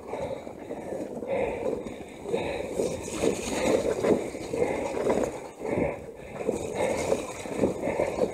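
Mountain bike riding through wet mud and standing water on a rain-soaked trail: tyres splashing and sloshing, in an uneven, surging rush.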